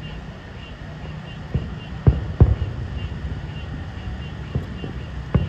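Aerial firework shells bursting: five low booms, two loud ones close together about two seconds in, a soft one and another loud one near the end.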